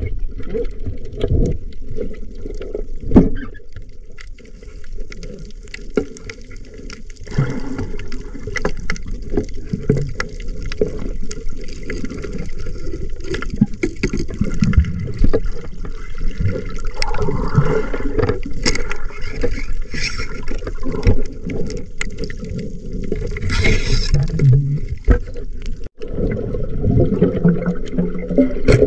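Muffled underwater sound from a camera in its housing during a night dive: low churning water noise with many scattered clicks and crackles, and a couple of short hissing rushes of water or bubbles.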